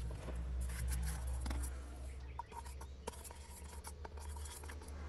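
Handling noise: light rubbing and scattered small clicks as a wooden stick and a small plastic jar are moved about on a wooden board, over a steady low hum.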